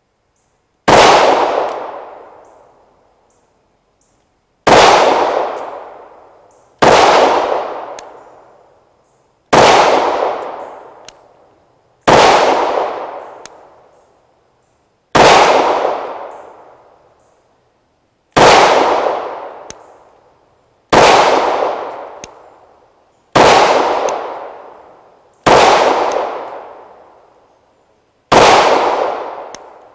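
Glock G45 9mm pistol firing slow, deliberate single shots: eleven in all, two to three seconds apart, each shot trailing off over a second or more.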